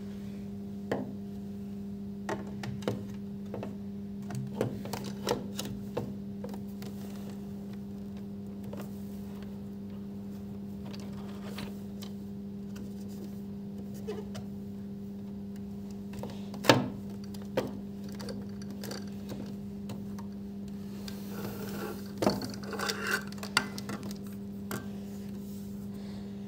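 Plastic extension table being handled and clipped onto a small portable sewing machine: scattered light plastic clicks and knocks, the loudest a little past the middle and a cluster near the end, over a steady low hum.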